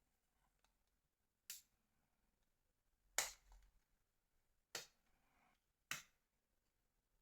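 Four short, sharp clicks and taps from handling a Nokia 2720 fold as it is being taken apart, the loudest about halfway through, with near silence between them.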